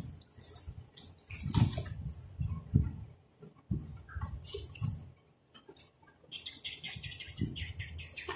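Handling noise from studio headphones and packaging: scattered knocks and rustles, then a plastic bag crinkling in quick crackles for the last two seconds or so.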